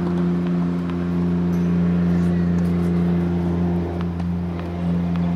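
An engine running steadily at one unchanging pitch. A few faint tennis-ball bounces on the hard court sound over it.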